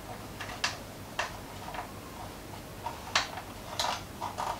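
Irregular sharp clicks and taps as the plastic phone holder mount of a ring light is twisted and fitted into place by hand, with about four louder clicks among fainter ones.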